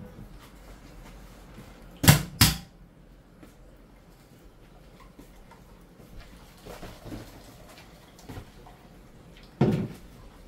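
Kitchen clatter: two sharp knocks a fraction of a second apart about two seconds in, and another knock near the end, from things being handled and set down.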